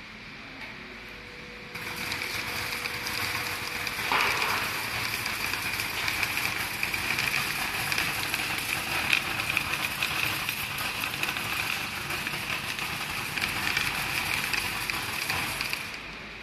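WeBest optical colour sorter sorting black peppercorns: a dense crackling hiss of grains streaming through the machine and its compressed-air ejectors puffing out rejects. It starts about two seconds in and cuts off suddenly near the end.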